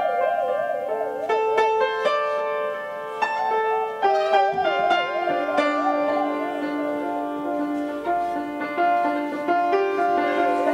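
Upright piano playing slow, sustained notes and chords, with a bowed instrument's wavering, wide-vibrato melody laid over it that drops out and comes back.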